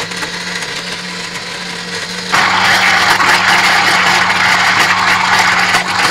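Countertop electric blender running, its motor whirring steadily as it blends a milkshake of milk, bananas, dates and almonds in a glass jar. About two seconds in the sound gets clearly louder and brighter.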